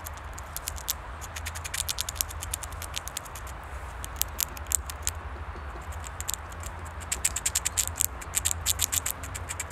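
Eurasian red squirrel gnawing a nut shell: rapid runs of sharp crunching clicks in two main spells, the first from about half a second to three seconds in and the second near the end, with sparser clicks between. A low steady rumble sits beneath.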